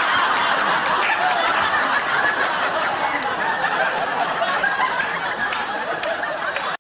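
Studio audience of a sitcom laughing loudly and steadily, then cut off suddenly at an edit.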